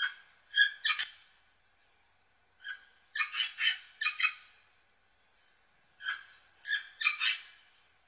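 Amazon parrot calling in three bursts about three seconds apart, each a quick run of several short, rasping calls.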